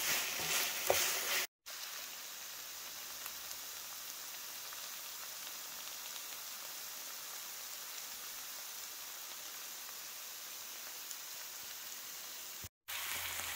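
Bacon and onion jam cooking down in a frying pan: a faint, even, crackling sizzle. For the first second or so a spatula stirs and scrapes the pan, then the sound drops out for a moment and the soft sizzle goes on alone.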